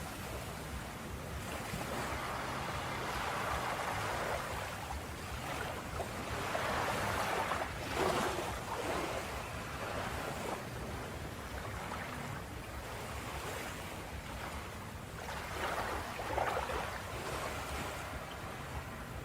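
Ocean waves breaking and washing on a shore, the surf swelling and receding, with louder breakers about eight seconds in and again near the end.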